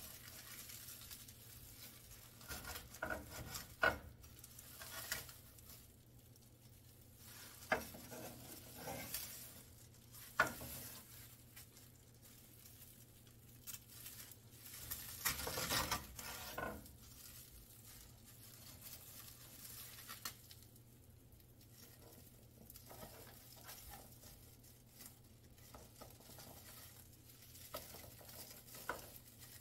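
A kitchen knife cutting through a stack of crisp roasted laver sheets on a wooden cutting board: dry crackling in irregular spells. A few sharp clicks come from the blade meeting the board, and a longer crackle comes about halfway through.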